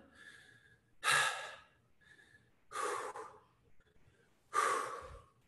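A man breathing hard to recover after a high-intensity workout circuit: three heavy, breathy exhalations about two seconds apart, with faint breaths between.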